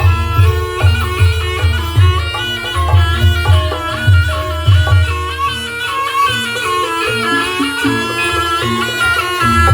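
Javanese barongan accompaniment music: a reedy wind instrument plays a wandering traditional melody over steady low drum strokes. The drums ease off in the middle and pick up again near the end.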